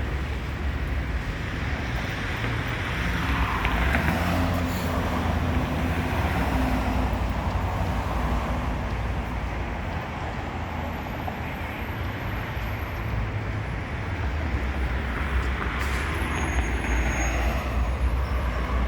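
Street traffic: a steady low engine rumble and tyre noise from passing cars, swelling as vehicles go by about four seconds in and again near the end.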